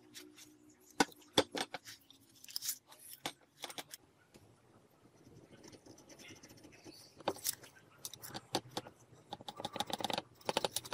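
A steel bar knocking and clinking against a worktable as it is set down and handled, two sharp knocks about a second in, then scattered light taps, with a quick run of small clicks near the end.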